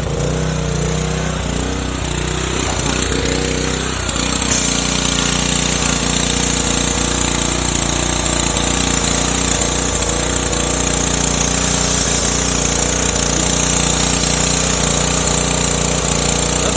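Pressure washer running steadily, its motor and pump a constant pitched hum under the hiss of the high-pressure spray from an undercarriage cleaner wand. About four seconds in the machine's pitch shifts and the spray hiss grows louder, then holds steady.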